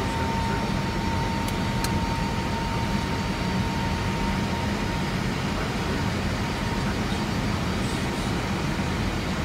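Steady cabin noise inside an Airbus airliner's cockpit in climb: a constant rumble of airflow and engines with a thin steady whine above it.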